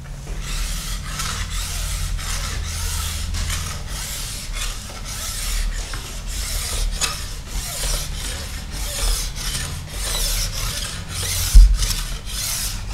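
Steel file held in a base edge file guide, drawn in repeated rasping strokes along a ski's steel base edge, about two strokes a second. A single sharp thump sounds near the end.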